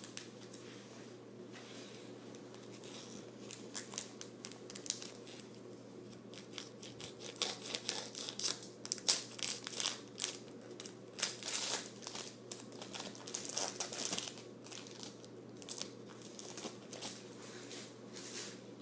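Yu-Gi-Oh booster pack's foil wrapper being crinkled and torn open by hand, with many irregular crackles over a faint steady hum.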